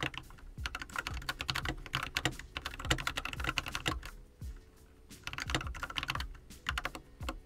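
Typing on a computer keyboard: quick runs of key clicks with a short pause a little past halfway.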